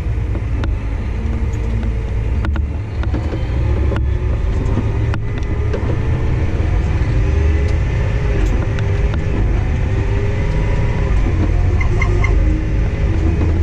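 Heavy truck's diesel engine running under way, its note rising and falling slowly over a steady low rumble, with a few light clicks and rattles.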